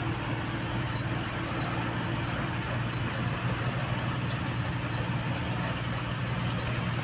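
Container trailer truck's diesel engine running steadily while driving, with tyre and road noise, heard from inside the cab as an even low hum.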